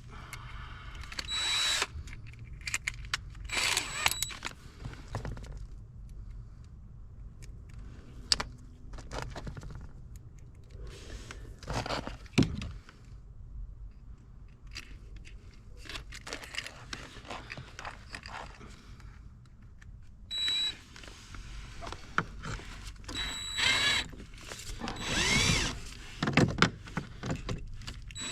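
Power drill run in short bursts, boring pilot holes under a car's dashboard, with clicks and knocks of handling between the bursts.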